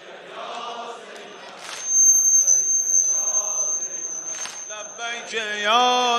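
A crowd of men chanting a Shia sinezen mourning lament, with a few heavy chest-beating thuds. A steady high whistle-like tone sounds for about three seconds in the middle. Near the end a single male voice enters singing the lament with sliding, held notes.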